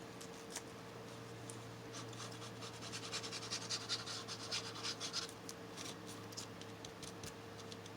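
Fingers rubbing and pressing paper flat as it is glued down, a faint scratchy rustle of many small strokes, busiest in the middle, over a steady low electrical hum.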